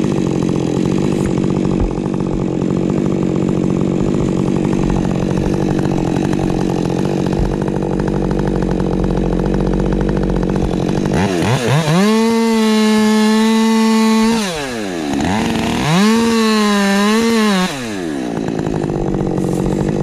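Husqvarna 550 XP Mark II two-stroke chainsaw running hard under load, cutting wood, for about eleven seconds. It then comes free and is revved twice to a high, steady full-throttle whine, the pitch falling after each rev.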